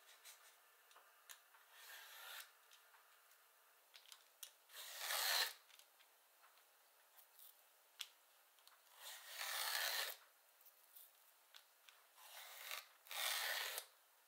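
A vegetable peeler drawn lengthwise along a raw zucchini, shaving off thin ribbons: about five long scraping strokes, the loudest about five seconds in, with light clicks of handling between them.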